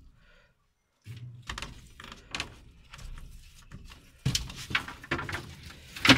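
Long thin wooden sticks knocking and clattering against each other and the wooden frame as they are carried and laid down, with the sharpest knocks about four seconds in and just before the end.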